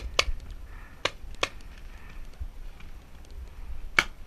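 Paintball markers firing: a few single sharp pops spaced a second or more apart, over a low rumble.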